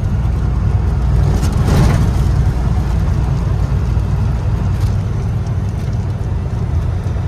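Loaded-route truck driving along, heard from inside the cab: a steady low engine and road rumble, a little louder about two seconds in.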